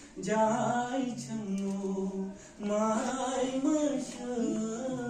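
A man singing solo and unaccompanied, holding long drawn-out notes that step up and down in pitch, with a short breath pause about two and a half seconds in.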